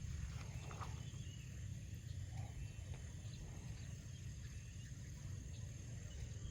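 Quiet waterside ambience: a steady high insect drone with a few faint short chirps, over a low rumble.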